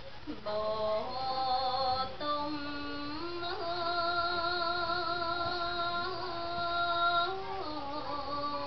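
A woman singing smot, Khmer Buddhist chanted verse, solo into a microphone. Her long, wavering notes step between a few pitches, and the longest is held for about five seconds.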